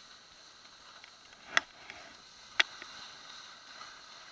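Skis sliding on packed snow, a steady faint hiss, with two sharp clicks about a second apart.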